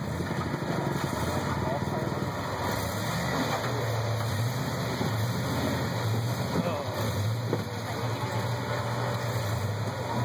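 Rock crawler's engine running steadily at low revs, with indistinct voices of people nearby.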